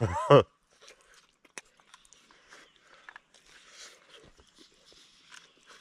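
A short spoken word at the start, then faint chewing and mouth sounds of someone eating a baked potato, with a few small sharp clicks scattered through.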